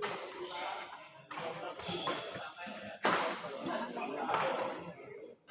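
Badminton rally: four sharp racket strikes on the shuttlecock, one every one to two seconds, each echoing briefly, over background chatter.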